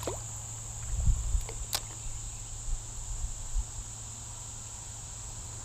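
Steady high-pitched insect chirring, with a few low thumps about a second in and a single sharp click shortly after.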